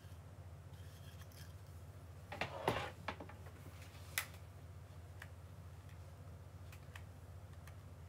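Handling noise while styling hair with a flat iron: a brief rustle with several sharp clicks about two and a half seconds in, another click about four seconds in and a few faint ticks later, over a steady low hum.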